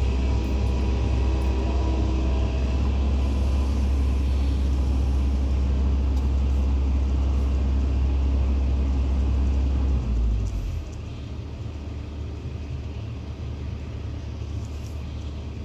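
Excavator's diesel engine running steadily with a deep drone, which drops off and eases to a lower, quieter rumble about ten seconds in.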